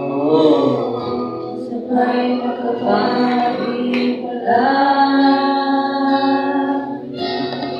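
A small group of young male and female voices sings a worship song into microphones. Partway through they hold one long sustained note.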